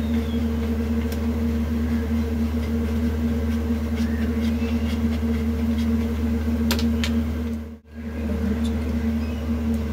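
A steady low machine hum, cut off for a moment about eight seconds in, with faint scrapes of a paneer block rubbed on a stainless-steel grater.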